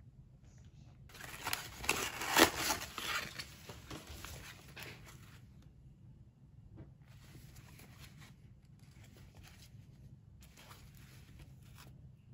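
Rubber-gloved hands pulling a sponge out of its cardboard packaging: a burst of rustling and crinkling, loudest about two seconds in. This is followed by softer rustles as the sponge is handled.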